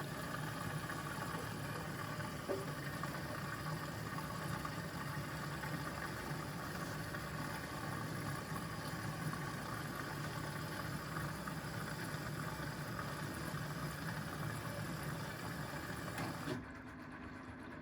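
Washing machine running: a click, then a steady low mechanical hum with hiss, which stops abruptly near the end.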